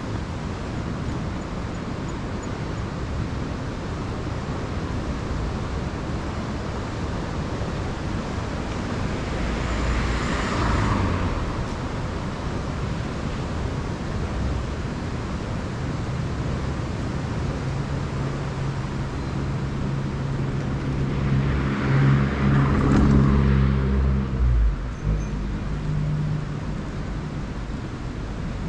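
Street traffic: a steady background of road noise, with one vehicle passing about ten seconds in and a louder, heavier vehicle with a low engine drone passing later.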